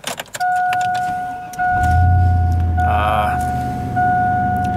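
A few clicks, then a steady electronic warning tone from the car's dashboard. About a second and a half in, the car's engine starts and settles into a low, steady idle.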